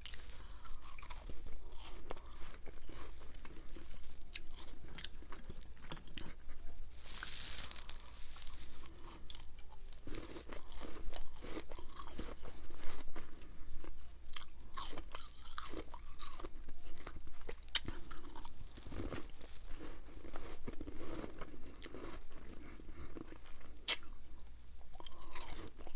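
A person chewing and crunching mouthfuls of ice and freezer frost close to the microphone, with many small sharp crunches throughout. A brief louder hissing rustle comes about seven seconds in.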